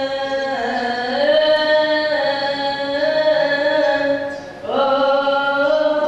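Singing in long held notes, each pitch sliding into the next. It breaks off briefly about four and a half seconds in, then a new note slides up and holds.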